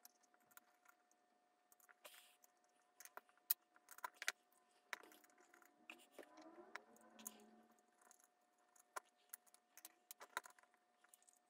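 Faint scattered clicks, taps and scrapes of a small screwdriver and small metal parts as a Mamiya 645 Pro camera body is taken apart by hand.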